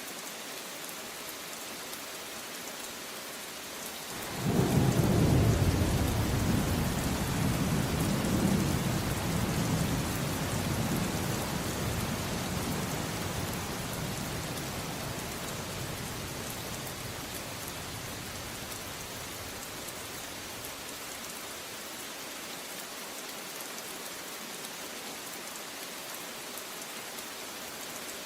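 Steady rain falling, with a rolling thunderclap that breaks in suddenly about four seconds in and rumbles away slowly over the next fifteen seconds or so.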